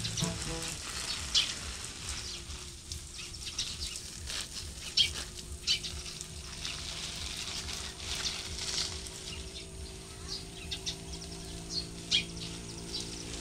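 A stream of water pattering and splashing onto the leaves and soil of potted plants, a steady hiss broken by many small splashes. A faint steady low hum sits underneath from about halfway through.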